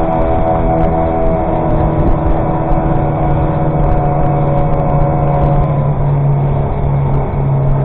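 Two 15 hp outboard motors running together at half throttle under way, a steady engine drone over the rush of noise from the hull and water.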